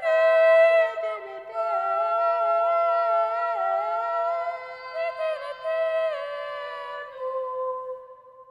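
Closing music of several held notes moving slowly in pitch, which fades out near the end.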